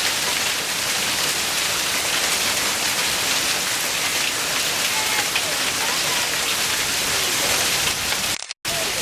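Heavy hail and rain pelting down in a dense, steady hiss. The sound cuts out for a moment near the end.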